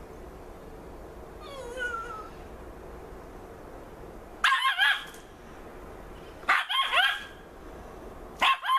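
A small dog, a Yorkshire terrier, gives a faint brief whine, then three short bouts of high-pitched barking a couple of seconds apart, each a quick cluster of yaps.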